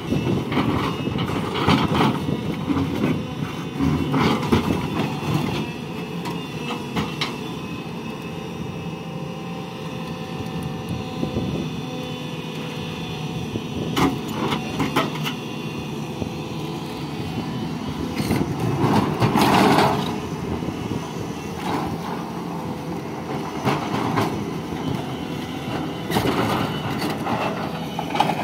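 SANY SY210C crawler excavator's diesel engine running steadily as it works boulders, with repeated clanks and knocks of rock against rock and the steel bucket, the loudest a little past the middle.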